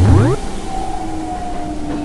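Train running: a loud low thump with a quick rising sweep at the start, then steady running noise with a few held, slowly drifting tones.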